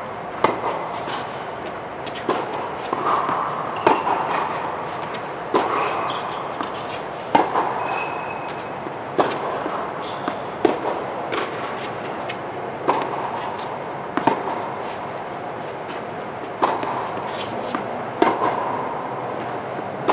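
Tennis racquets hitting a ball back and forth in a long rally: a sharp pop about every one and a half to two seconds, each with a short echo under the air-supported dome.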